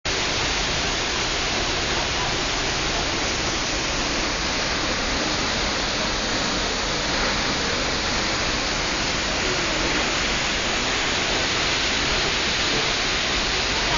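Waterfall, a steady and even rush of falling water.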